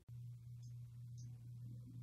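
Quiet room tone: a steady low hum with a few faint high ticks, starting after a brief dropout at the edit.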